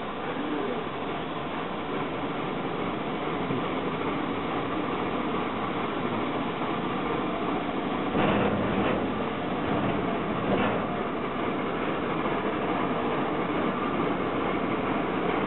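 Shay geared steam locomotive working toward the listener, its exhaust and running gear a steady, dense rumble that grows a little louder, with a few louder bursts about eight and ten seconds in.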